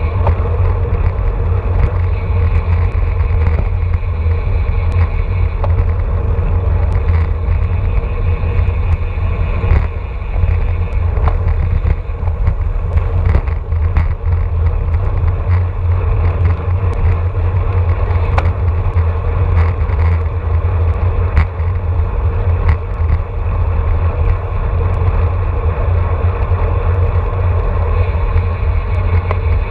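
Steady wind rush buffeting the microphone of a handlebar-mounted camera on a road bike moving at about 25 mph in a racing pack, with tyre and road rumble underneath. Scattered short clicks and knocks come from the bike and the road.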